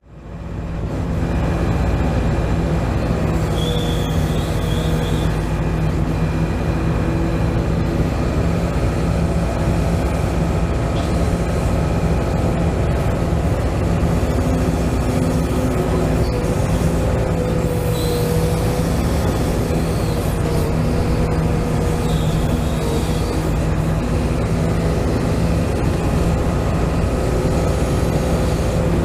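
RC hydraulic excavator running as it digs: a steady mechanical hum from its pump and motor, with a whine that wavers slightly in pitch as the arm works. It fades in at the very start.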